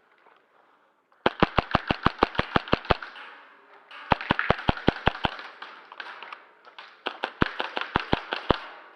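Airsoft electric gun (AEG) firing three bursts of rapid shots, about eight a second, the first starting a little over a second in.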